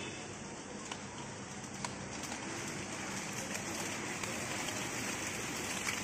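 Light rain falling: a steady soft hiss, with a couple of faint drop ticks about one and two seconds in.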